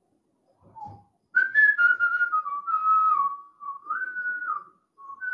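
Someone whistling a slow tune, a string of held notes stepping up and down, starting about a second and a half in. It breaks off briefly near the end, then starts again.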